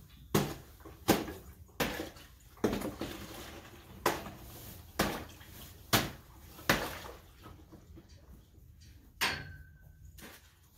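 A series of sharp knocks or cracks, about nine at uneven spacing of roughly a second. One about nine seconds in rings briefly with a clear tone.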